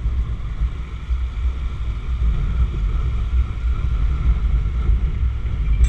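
Steady low rumble of wind buffeting the microphone and road noise while riding a Honda Fan motorcycle, a small single-cylinder bike.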